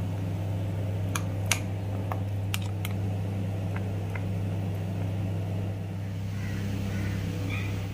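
A steady low electrical hum, like a running appliance motor. Over it come a few light clicks and scrapes of a metal spoon against a bowl as thick ground paste is scooped out, mostly in the first few seconds.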